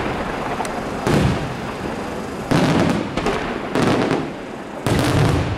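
Aerial firework shells bursting: a run of about five loud booms a second or so apart, each trailing off in a rumbling echo.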